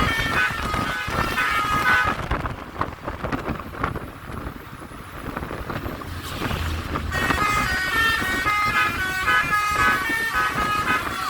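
Telolet basuri multi-tone air horn on a tour bus, playing a quick melody of short stepped notes. It stops about two seconds in, leaving only quieter road noise, then starts up again about seven seconds in.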